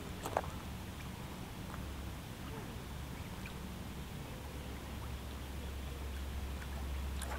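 Faint splashing of a hooked carp being played at the surface close to the bank, over a steady low rumble, with one short sharp sound about half a second in.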